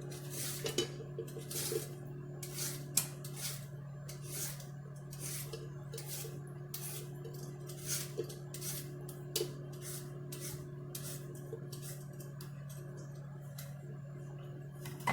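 A carrot being peeled: repeated short scraping strokes of the peeling blade along the carrot, about two or three a second.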